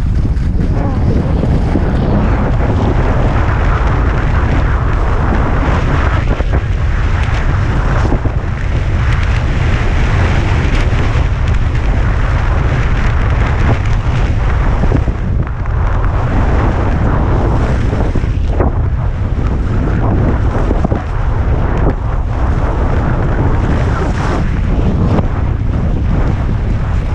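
Wind buffeting the microphone while skiing downhill at speed, a loud steady rumble, over the hiss of skis carving on snow that swells and fades through the turns.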